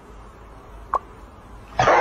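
A dog gives one short yelp about a second in, then starts howling loudly near the end, a wavering pitched cry.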